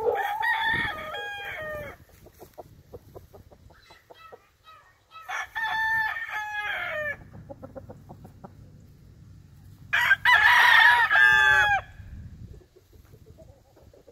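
Rooster crowing three times, about five seconds apart, each crow a long held call that falls off in pitch at the end; the third crow is the loudest.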